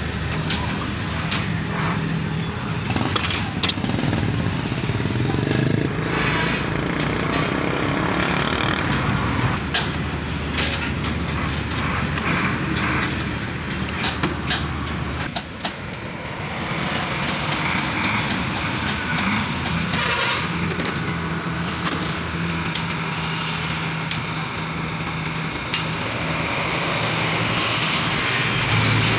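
Steady engine-like rumble in the background, with scattered metallic clicks and knocks from hand tools as a hydraulic bottle jack is unscrewed and taken apart in a steel bench vise.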